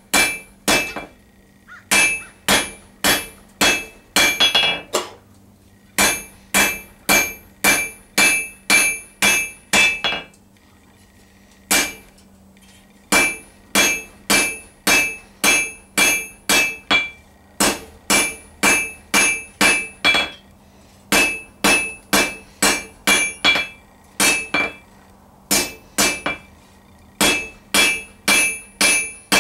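Hand hammer striking a hot steel bar on an anvil in steady runs of about two blows a second, each blow ringing brightly: the bar is being drawn out and tapered. Brief pauses come between runs, the longest about ten seconds in.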